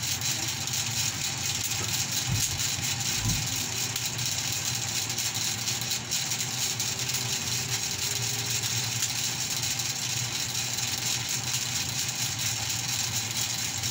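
A steady low engine-like hum under a constant high hiss, with two brief low bumps about two and three seconds in.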